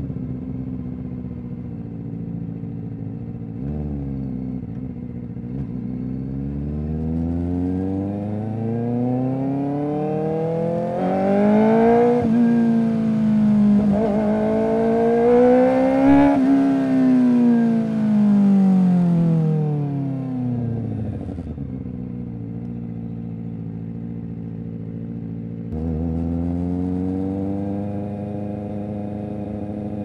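Kawasaki Ninja ZX-4RR's inline-four engine through an SC Project exhaust. The engine note climbs for several seconds to a loud peak in the middle, then falls away as the bike slows. It settles low and steady, then steps up suddenly near the end.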